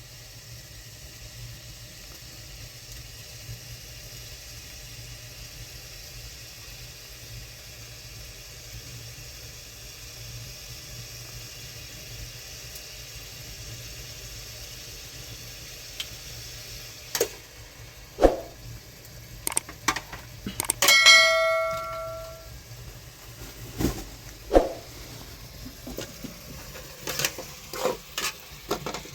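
A steady hiss, then metal pots and utensils clattering in a run of sharp knocks. About 21 s in, one metal pot or lid is struck and rings clearly for about a second and a half.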